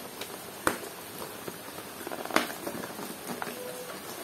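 A plastic toy gun being unpacked by hand from its cardboard packaging. Light handling rustle with two sharp plastic clicks, one just under a second in and a slightly louder one about halfway through.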